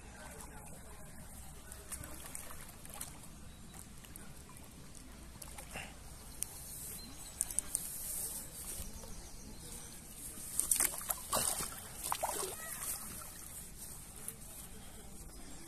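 Pond water splashing and sloshing as a carp is drawn into a landing net and the net is lifted out, water dripping off the mesh. There are a few brief splashes about halfway through and a louder burst of splashing and dripping about two-thirds of the way in.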